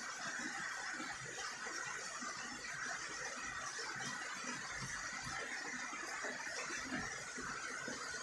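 Steady rain falling, a constant even hiss without a break.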